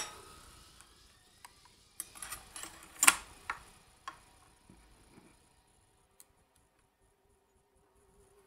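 Metal needle plate being set into place on a Janome Combi DX 502 serger bed: a handful of light metallic clicks and clinks, the loudest about three seconds in, then a few fainter ticks as it is fitted.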